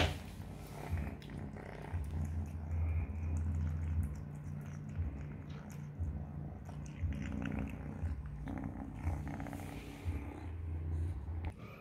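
Three-month-old kitten purring: a low rumble in stretches of a second or two with short breaks between.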